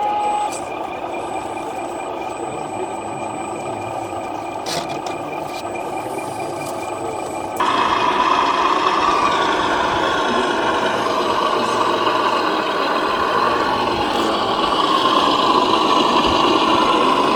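Small electric motors of radio-controlled crawler trucks whining steadily as they drive. About eight seconds in, the sound jumps suddenly to a louder, fuller whine.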